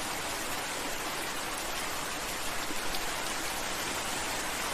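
Steady rain falling, an even hiss without pauses.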